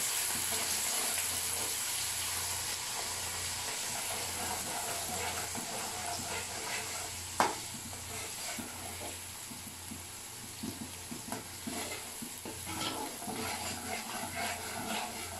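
Sliced onions frying in hot oil in an aluminium pot, a steady sizzle, while a steel ladle stirs them and scrapes against the pot. There is one sharp knock about seven seconds in.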